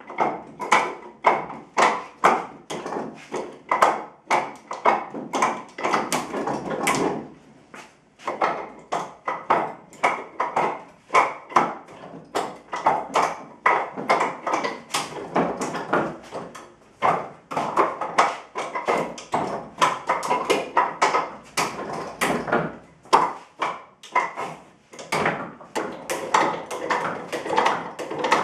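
Wooden Wing Chun dummy being struck: rapid clacks of forearms and palms on its wooden arms and trunk, in quick flurries of several hits a second, with a short pause about eight seconds in.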